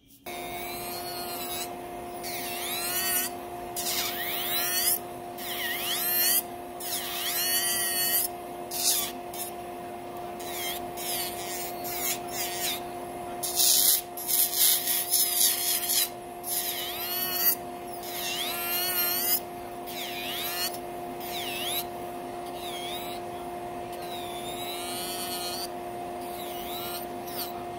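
Electric nail drill (e-file) running with a steady hum while its bit files down a polygel nail. The bit's contact with the nail adds repeated high, wavering squeals.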